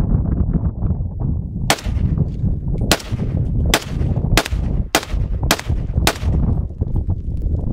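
AK-47 rifle fired as seven single shots, the first about two seconds in, spaced roughly half a second to a second apart, each crack followed by a short echo off the hillside.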